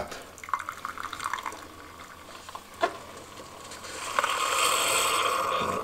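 Keurig K-Slim single-serve coffee maker dispensing coffee into a mug with a faint trickle and one click near the middle. About four seconds in, a louder steady whirring hiss starts from the machine as it finishes the brew.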